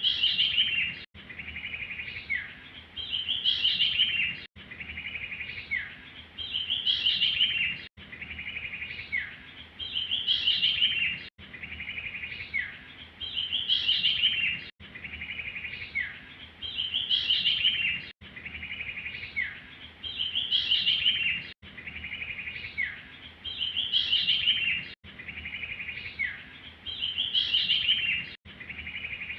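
Recorded small songbird call played on a loop as a trapping lure: a phrase of rapid high chirping notes, a short falling note and a quick upward sweep, repeated about every three and a half seconds.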